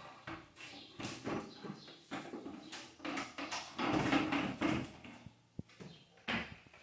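Paint roller on a long extension pole being worked: irregular swishing and scraping strokes, with a few sharp knocks.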